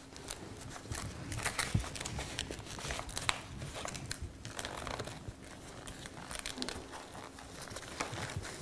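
Blood pressure cuff being wrapped around a manikin's arm: fabric rustling and crinkling with scattered small clicks and knocks.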